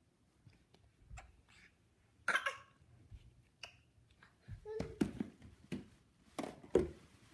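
A baby's scattered short grunts and a brief squeal about two seconds in, among light knocks and rustles of play with small plastic balls. A low thump near the end is the loudest sound.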